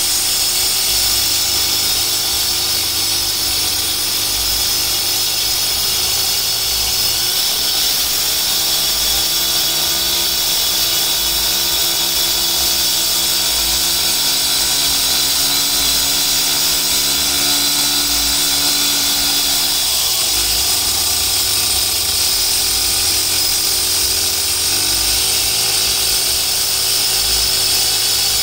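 Makita EK6100 power cutter, a 61 cc two-stroke engine spinning a 12-inch disc, cutting into a concrete pipe: a loud, steady high-pitched grinding whine over the engine note. The engine note shifts in pitch a few times, about a quarter of the way in and again after two-thirds.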